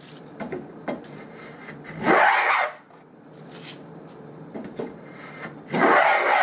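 Handmade wooden skewed rabbet plane cutting a rebate along a board's edge: two strokes, each a brief swish of cutting under a second long, about two seconds in and again near the end, taking a very shallow full-width shaving. Small clicks and taps between the strokes.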